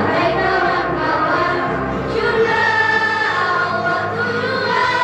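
A choir singing, holding long notes that shift in pitch every second or so.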